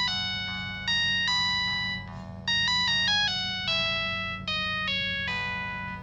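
Samsung SGH-T108 mobile phone playing one of its built-in ringtones: a synthesized melody of stepped notes in short phrases, each starting loud and fading away.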